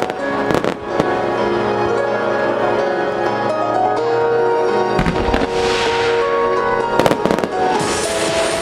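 Aerial fireworks shells bursting: sharp bangs near the start, about five seconds in and a quick cluster about seven seconds in, with a crackling hiss from the stars around six seconds and near the end. Music with long held notes plays underneath throughout.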